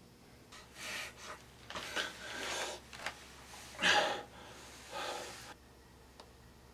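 A poisoned man gasping for breath in several ragged bursts, the loudest about four seconds in.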